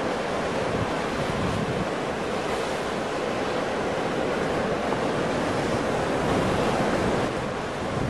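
Ocean surf: waves breaking and washing in a steady, dense rush of water noise, swelling slightly louder near the end.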